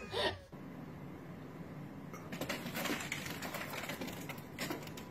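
A brief whining cry from a cat at the very start, then the scratching and clicking of a cat's claws gripping a textured wall as it climbs, in uneven clusters over a steady low hiss.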